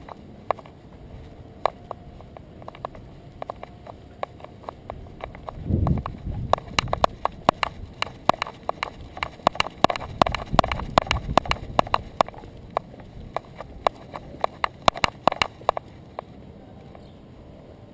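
Rapid, irregular clicks and taps that keep step with a small terrier walking, picked up by a camera strapped to its back. There is a short low rumble about six seconds in.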